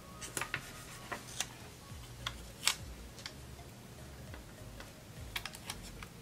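Scattered light clicks and taps of long fingernails and paper as stickers are pressed down onto planner pages. The taps come irregularly, about a dozen, with a few bunched together near the end.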